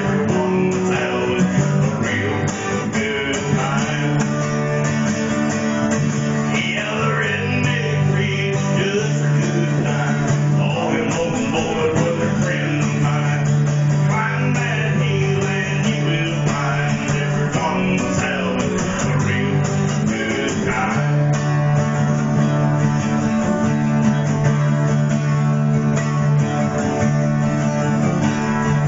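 Two acoustic guitars strummed and picked together, playing a country tune.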